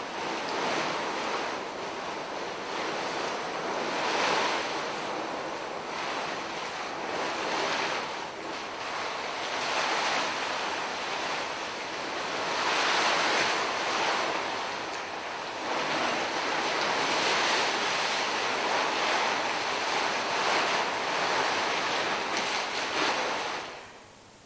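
A large mass of crumpled paper rustling as a performer moves inside and under it, in swells of noise that rise and fall every few seconds. It stops suddenly near the end.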